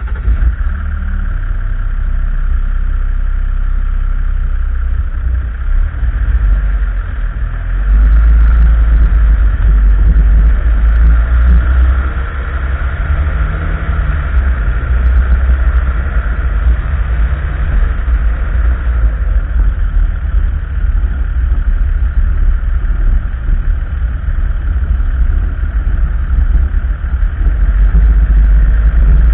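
A vehicle driving along a paved road: steady engine and road noise with a heavy low rumble, getting louder about eight seconds in as it pulls onto the road and picks up speed.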